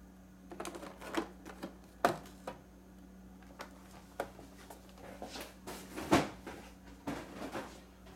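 Carded action figure being handled: the plastic blister pack and cardboard backing click, tap and crinkle as it is turned over and taken away, in scattered clicks with the loudest about six seconds in.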